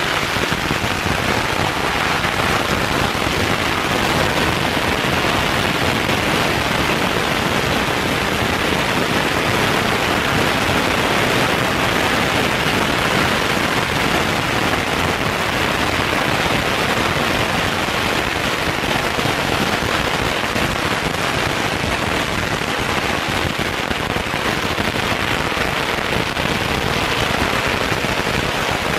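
A long string of firecrackers going off in one continuous, dense crackle at an even level.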